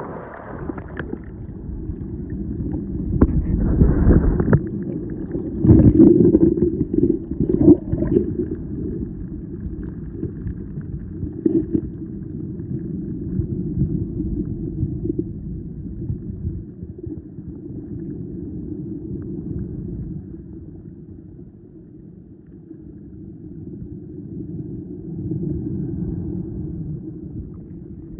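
Muffled underwater sound picked up by a waterproof action camera submerged in a tide pool: a low water rumble and sloshing, with a run of heavy knocks and thumps in the first several seconds, then steadier.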